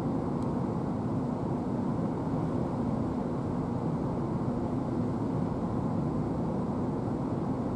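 Steady, distant rumble of an Airbus A380 jet airliner's four engines passing high overhead.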